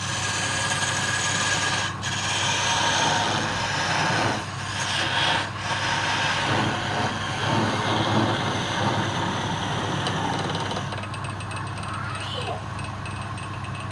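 Wood lathe running with a steady motor hum, under the rough scraping noise of wood being worked on the spinning piece.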